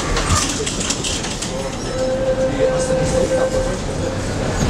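Tram car running along the line, heard from inside the passenger compartment: a steady rumble and rattle of wheels on rail with scattered knocks, and a thin steady tone for about two seconds in the middle.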